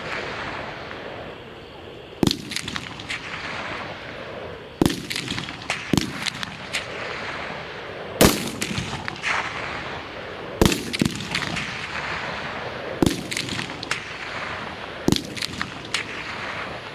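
Live rifle rounds fired one at a time: about seven loud shots roughly two seconds apart, each trailed by a short echo, with fainter cracks between them.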